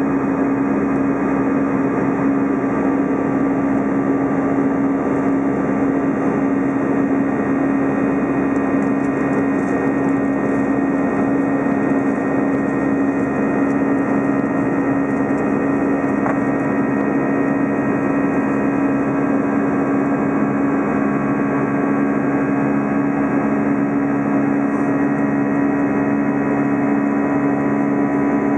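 Airbus A320's twin jet engines at climb power, heard inside the passenger cabin as a steady drone: a constant low hum with a few steady tones over a rushing air noise, unchanging throughout.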